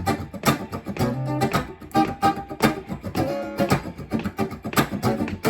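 Guitar strummed in a fast, even rhythm of short strokes, most of them muted and percussive, with a chord left ringing now and then.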